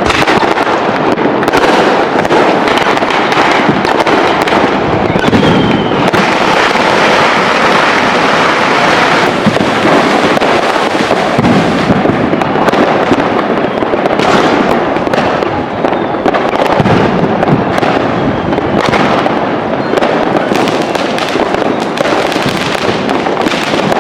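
Firecrackers and fireworks going off in a dense, continuous barrage: many sharp cracks and bangs running together without a break, loud throughout.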